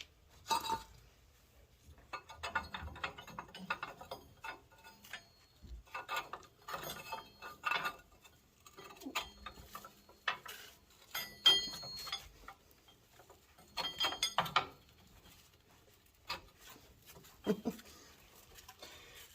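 Steel U-bolts and a shock plate clinking and clanking irregularly as they are worked into place around a truck's rear axle, metal knocking on metal with short ringing clinks.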